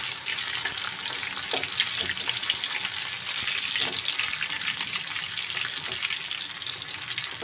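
Fish pieces shallow-frying in hot oil in a pan: a steady, even sizzle.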